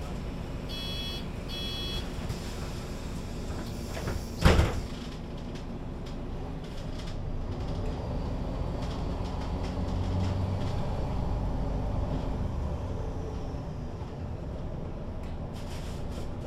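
MAN NG 313 articulated bus at a stop: two short door-warning beeps, then the doors shut with a sharp pneumatic hiss and thump, the loudest sound. The bus's diesel engine then pulls away, its drone building to a peak and easing off as the Voith automatic gearbox takes up the drive.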